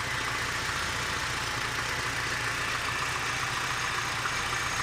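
Car engine idling warm, with a small knock that the owner suspects is piston slap.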